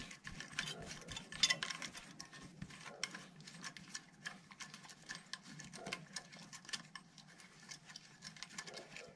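Faint metal clicks and ticks from axle collars and nuts being threaded by hand onto an electric skateboard truck's axle. A dense, uneven run of clicks, with one louder click about a second and a half in.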